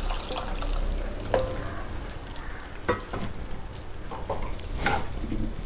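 Tamarind gravy poured from a steel bowl into a clay pot of fried onions and stirred with a steel ladle. Three sharp metal clinks from the ladle come about a second and a half apart.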